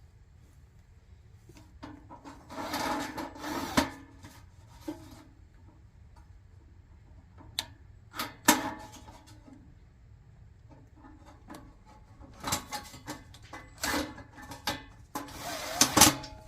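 Parts of a forced-air heater being handled and fitted during reassembly: bursts of rubbing and scraping with several sharp clicks and knocks, the loudest near the end.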